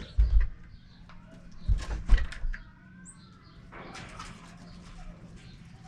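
Squirrel monkeys giving faint, short high chirps and peeps, broken by two bouts of heavy low thuds close to the microphone: one right at the start, the other about two seconds in.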